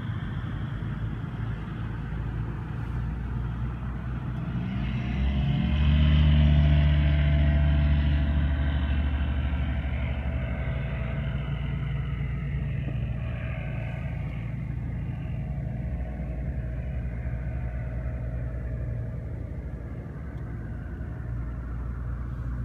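Light aircraft engine during a touch-and-go: the engine note rises and grows louder about four to six seconds in as the plane comes past under takeoff power. It is loudest around six to eight seconds in, then slowly drops in pitch and fades as the aircraft climbs away.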